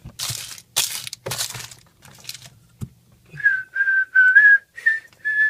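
Rustling and handling noise for the first second and a half, then, about three and a half seconds in, a person whistling a short run of clear notes, each under half a second.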